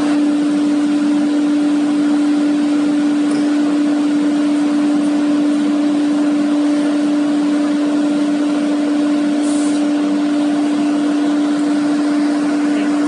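FW2030 ATC wood CNC router running: a steady, unchanging spindle whine over a hiss of machine noise.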